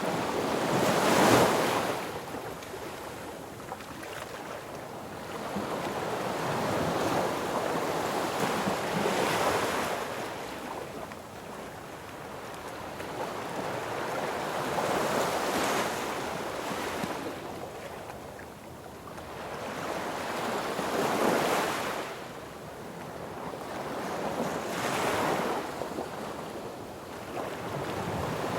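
Sea waves breaking on a beach, the surf swelling and fading about every five to six seconds, the loudest surge about a second in.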